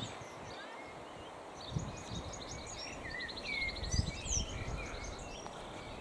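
Small birds singing and calling: quick chirps, short sliding notes and a rapid trill near the middle, over a low outdoor rumble that swells briefly twice.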